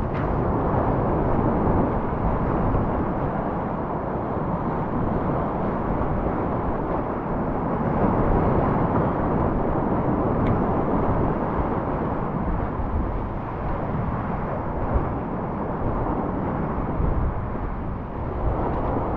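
Loud, steady rush of whitewater from a flood-stage alpine river pouring around a kayak, picked up close to the water by a helmet camera.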